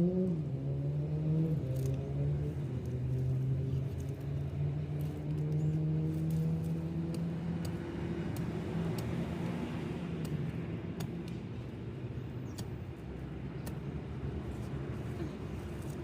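A motor engine running, a steady hum whose pitch wavers at first and then slowly fades, with faint rustling and small clicks over it.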